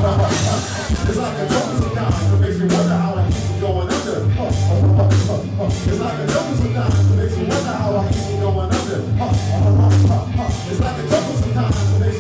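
Live rock band playing a cover of an old-school hip-hop song on drum kit, electric bass and vocals. A steady beat of about two drum hits a second runs under a heavy bass line, with voices rapping and singing over it.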